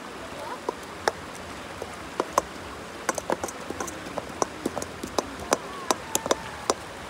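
A hand-held stone pounding and grinding green plant matter in a metal pan: sharp, irregular knocks and clicks of stone on metal, roughly three or four a second, over a steady background hiss.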